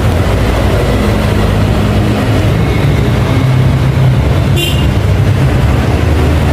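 Steady, loud, low mechanical drone, with a brief high squeak about four and a half seconds in.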